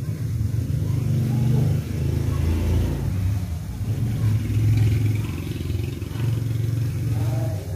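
An engine running with a low rumble that swells and dips in level.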